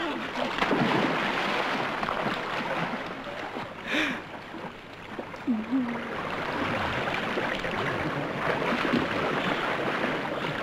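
Stream water rushing and splashing over rocks, a steady noise, with a few brief short sounds over it, one about four seconds in.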